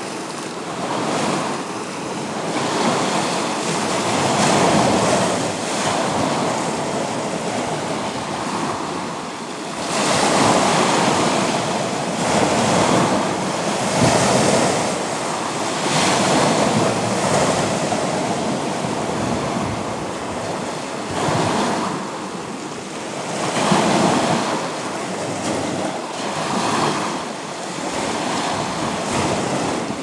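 Small sea waves breaking and washing against rocks and a shingle shore. The surf swells and falls away every few seconds.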